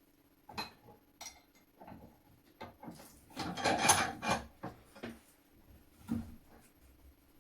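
Small metal hand tools knocking and scraping against the rusted gun parts and workbench: a few separate clicks, and a busier stretch of scraping and clatter around the middle.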